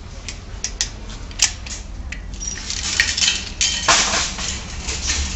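A metal supermarket shopping cart's coin-deposit chain lock being worked, with a few sharp clicks. Then the wire cart clatters and clanks, with several louder knocks, as it is freed from the chained row.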